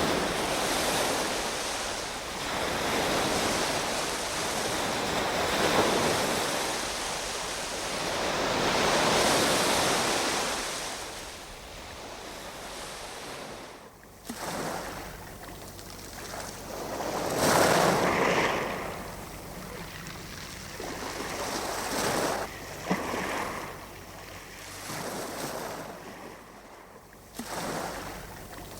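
Sea waves breaking and washing up, each swell rising and falling away over a few seconds. About halfway through the sound drops sharply, and after that the waves come as separate, quieter surges.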